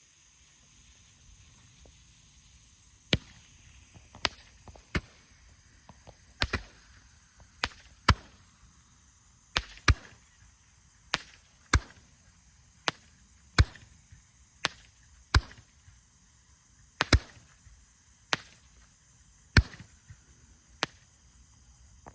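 Roman candle firing: a string of about twenty sharp pops at irregular intervals, starting about three seconds in and going on almost to the end.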